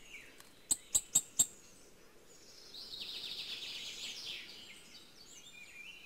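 Hawfinch calls: four sharp ticks in quick succession about a second in, then a rapid ticking chatter lasting about a second and a half, with faint twittering near the end.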